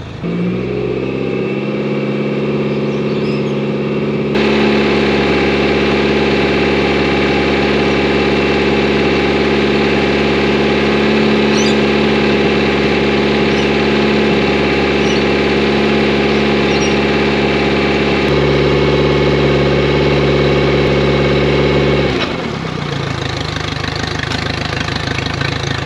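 Mercury 60 outboard running on flush muffs fed by a garden hose, held at about 2000 rpm in gear with a steady engine note. About four seconds before the end the revs drop back to idle.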